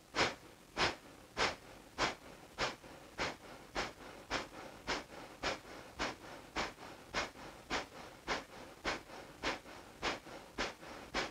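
Kapalabhati breathing: a person forcing short, sharp exhalations out through the nose. There are about twenty evenly spaced puffs, a little under two a second.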